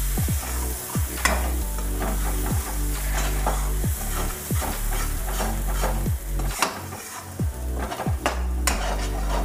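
Steel spoon stirring and scraping a spice paste frying in hot mustard oil in a metal kadhai. A steady sizzle runs under a scrape of the spoon against the pan about once a second, as ground ajwain, cumin, turmeric and dry ginger powder are roasted in the oil.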